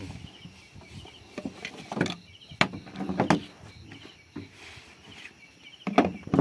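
Several irregular sharp knocks, like chopping on wood, with the loudest a little after the middle and near the end. Insects chirp faintly behind them.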